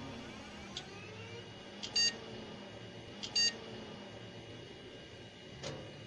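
A computer starting up: a steady whir of fan and drive with a faint rising whine about a second in, a few clicks, and short electronic beeps about two seconds in and again, doubled, about three seconds in.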